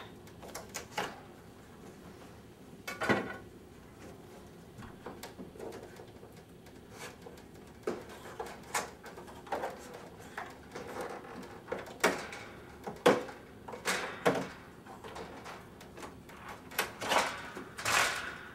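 Wooden interior sash stops being pried and pulled off the side jambs of a wood window frame: a string of irregular knocks, clicks and scrapes of wood on wood, the loudest in the second half.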